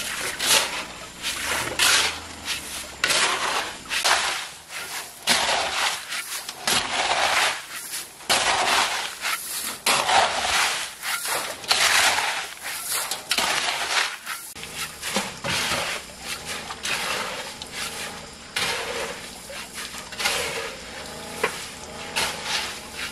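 A shovel scraping into and tossing wet gravelly sand in a steel trailer bed: repeated gritty crunching strokes, roughly one a second.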